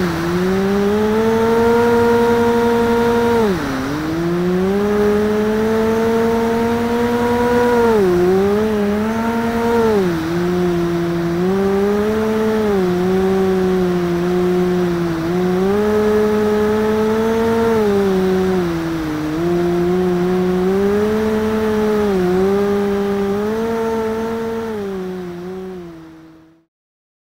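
Brushless electric motor and propeller of a Reptile Dragon FPV plane, heard from onboard, humming at a steady pitch that rises and falls with the throttle. The pitch drops sharply about three and a half seconds in and again several times from about eight seconds on, and the sound fades out near the end.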